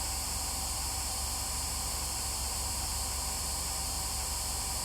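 Steady hiss of radio static from a ghost-hunting spirit box, with no voice coming through.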